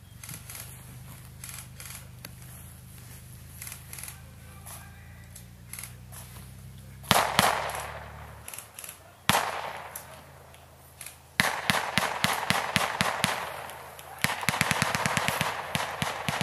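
Airsoft guns firing. There are a few faint scattered shots at first, then louder shots about seven and nine seconds in, then rapid full-auto strings of many shots a second in the last five seconds.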